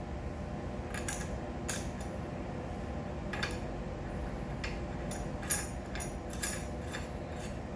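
Small metal parts of a mini bike's front fork (triple clamp, steering bearing, nut and washers) clicking and clinking as they are handled, with about eight short clinks, the loudest a little past halfway, over a steady low hum.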